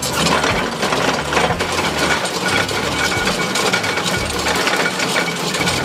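Simex TF 1100 hydraulic drum cutter on an excavator grinding into rock: its rotating pick-studded drums give a dense, continuous crackle and rattle of chipping stone.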